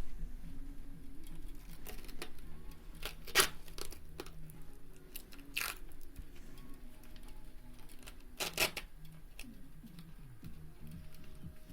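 Duct tape being torn in three short rips, about three and a half, five and a half and eight and a half seconds in, among quieter handling noise of the tube and nozzle.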